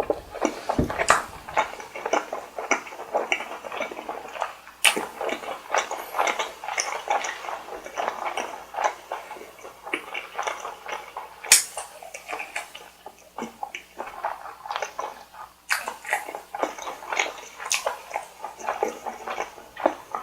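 Close-miked eating sounds: wet, sticky chewing and mouth smacking, dense with sharp clicks throughout.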